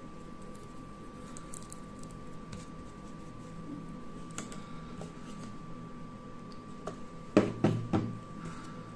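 Faint brushing and light ticking as a small paintbrush scrubs the inside of a small DC motor's metal housing to clean it. Three sharp knocks come near the end as the parts are handled against the table.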